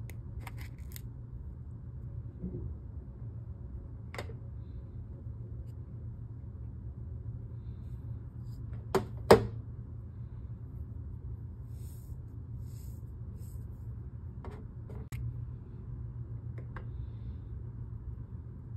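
Handling of a plastic heart mold and kinetic sand: a few scattered clicks and taps over a steady low hum. Two sharp clicks close together about nine seconds in are the loudest.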